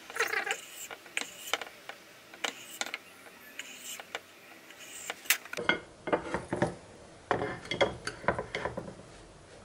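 A long kitchen knife slicing cured salmon on a wooden cutting board: short scrapes and ticks of the blade against the wood. From about halfway in come louder knocks and rubbing as the slices and a white ceramic plate are handled on the board.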